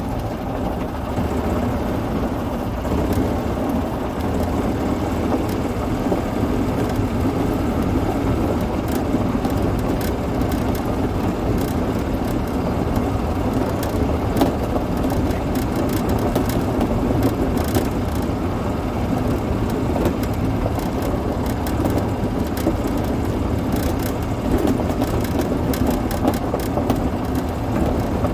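Yamaha golf cart running steadily while it drives along a gravel road, with frequent small clicks and crackles from the tyres on the gravel.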